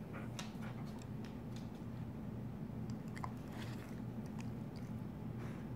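Dogs licking and mouthing at close range: irregular wet clicks and smacks of tongues and jaws, over a steady low hum.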